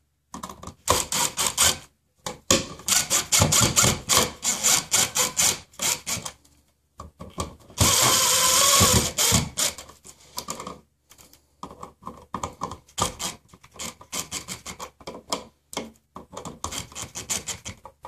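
Cordless power driver driving an outlet's mounting screws into the electrical box, running in short bursts with pauses between them and one longer, steadier run about eight seconds in.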